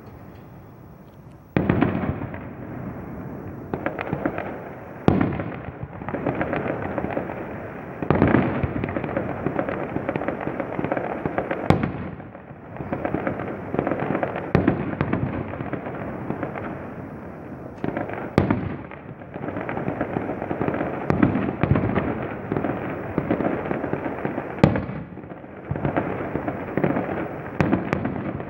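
Fireworks going off in a continuous barrage: dense crackling with many sharp bangs overlapping, some louder bangs standing out every few seconds.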